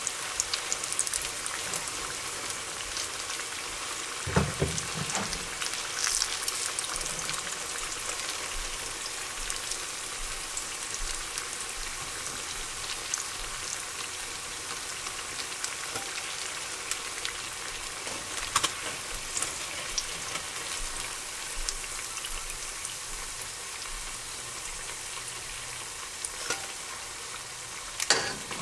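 Food frying in hot cooking oil: a steady sizzle with fine crackles throughout, and a few sharper knocks, the loudest about four seconds in.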